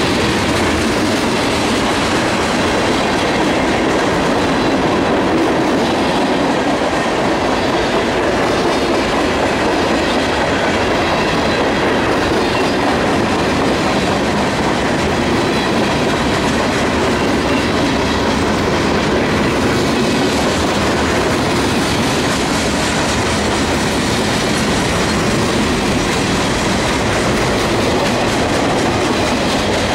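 Freight cars of a long manifest train rolling past close by: tank cars, hoppers and lumber flatcars, with a steady, loud rush of steel wheels on the rail.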